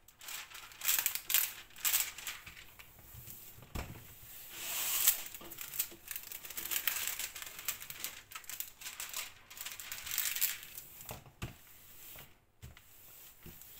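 Diamond painting canvas with its plastic cover film crinkling and rustling as hands bend it back and smooth it flat, with a couple of light knocks against the table.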